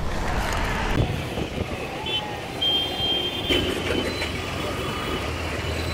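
Road traffic on a town street: motorbikes and other vehicles passing in a steady rumble, with a short high beep and then a longer high tone, like a horn, around the middle.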